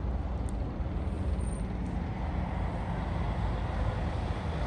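Steady low outdoor rumble: wind buffeting the microphone over the distant noise of traffic around a ferry port.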